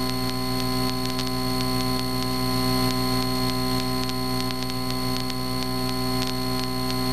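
Cessna 152's four-cylinder Lycoming engine and propeller droning steadily in the cockpit in level flight, with a thin steady high whine over it.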